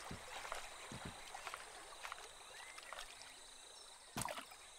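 Faint swamp-water ambience with soft lapping, a few light knocks, and a louder knock about four seconds in.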